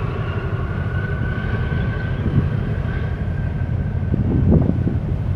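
Low steady rumble of a large container ship and a harbour tug working against its hull as they pass close by, with a faint steady whine above the rumble.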